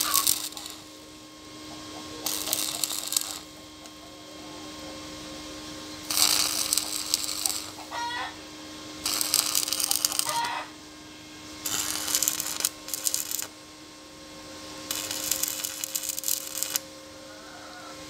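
Stick arc welding: about five separate bursts of crackling, sizzling arc, each one to two seconds long, with short pauses between, over a steady hum. Hens cluck now and then in the pauses.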